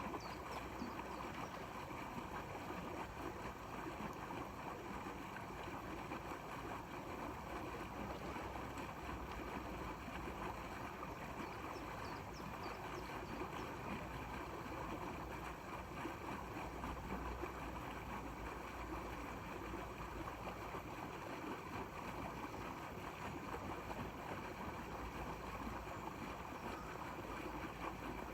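Steady outdoor wind and water noise, with low wind rumble on the microphone swelling at times.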